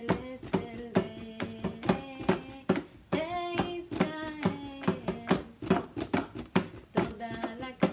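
Small djembe hand drum played with the palms in a quick, steady beat of about four strokes a second, with a woman singing along over it.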